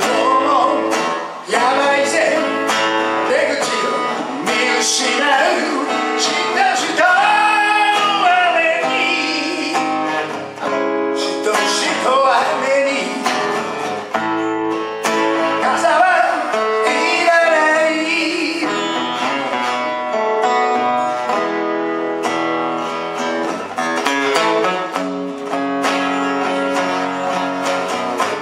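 A man singing while strumming an acoustic guitar in a live solo performance.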